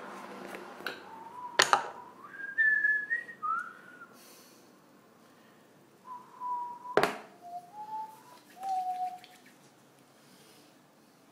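A person whistling two short phrases of a few notes with a pause between, the first climbing and the second stepping down. A sharp click falls in each phrase, near the start and again about midway, and these are the loudest sounds.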